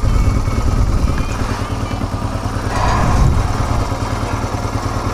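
Motorcycle engine idling with a steady low pulsing, briefly louder about three seconds in as the bike moves off.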